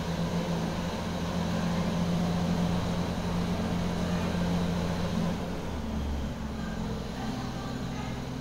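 Steady low mechanical hum of a running motor, its pitch shifting about five and a half seconds in.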